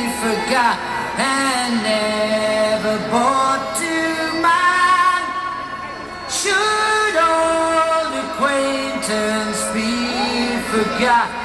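Music: female and male voices singing held, gliding notes over instrumental backing.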